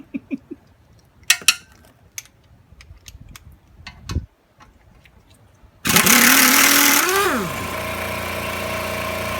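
A few sharp metallic knocks. Then, about six seconds in, a workshop air compressor starts with a loud burst of hissing and a whine that rises and then drops away, settling into a steady running hum.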